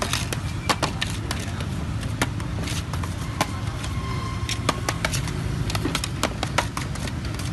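Metal scraper chopping kaloci dough in a metal tray of ground peanuts, knocking against the tray in quick, irregular clicks. A steady low rumble of street traffic runs underneath.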